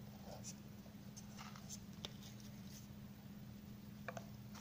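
Faint clicks and scratchy rustles of a stainless steel watch and its cardboard box and cushion being handled as the watch is taken out, over a steady low hum.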